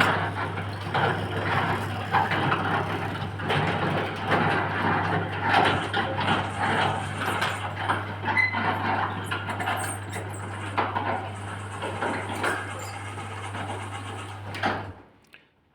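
Electric garage door opener closing the door: a steady motor hum with irregular rattling and clattering from the moving door, stopping suddenly near the end as the door comes fully down.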